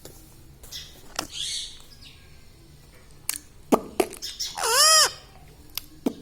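Indian ringneck parrot calling: a short raspy squawk about a second and a half in, then one loud call that rises and falls in pitch near the end, with a few sharp clicks in between.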